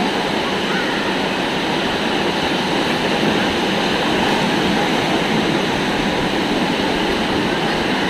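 Steady rush of ocean surf breaking and washing onto the beach.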